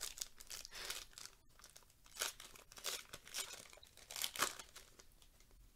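Trading-card pack's plastic wrapper being torn open and crinkled as the cards are pulled out: a run of irregular crackling rustles that die down about a second before the end.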